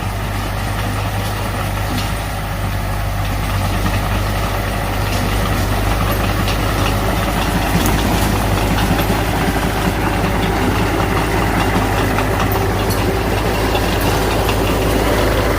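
Diesel engine of heavy earthmoving machinery running steadily, slowly growing louder, with scattered light clicks and knocks over it.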